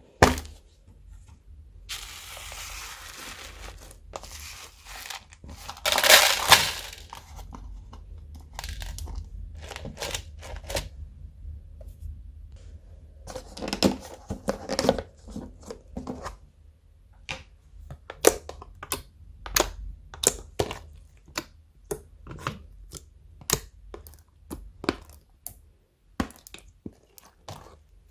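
Slime being stretched and squished by hand: crinkly, tearing crackle in the first half, loudest around six seconds in, then a run of sharp sticky pops, about two a second.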